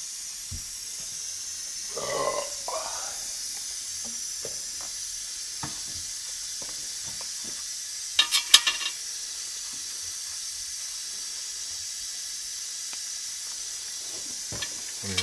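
Steady hiss in a tyre shop while gloved hands work a tyre on a chrome multi-piece wheel on a tyre changer. A quick cluster of sharp metallic clicks and taps comes about eight seconds in, the loudest sound, with a few lighter knocks around it.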